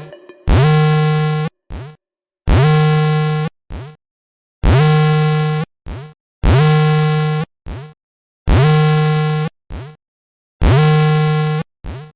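Earthquake-alert software sounding its synthetic alarm: a buzzy electronic tone about a second long, each followed by a short blip, repeating six times about every two seconds.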